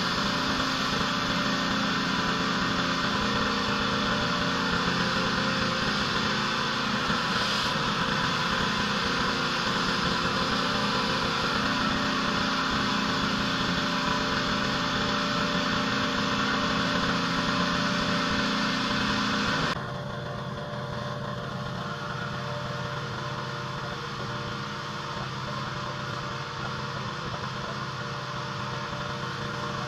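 Pressure washer's engine running steadily under the hiss of water spraying. About twenty seconds in, the spray hiss cuts off suddenly and the engine keeps running more quietly.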